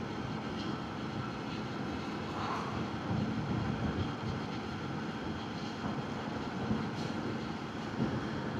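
Zontes 125 Scrambler X motorcycle's single-cylinder engine running steadily while riding, mixed with wind and road noise.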